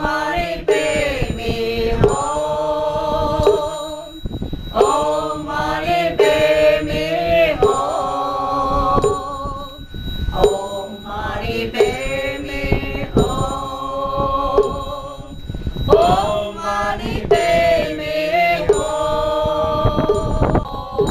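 Buddhist chant sung as a slow melody of long held notes, in four phrases of several seconds each with short breaks between.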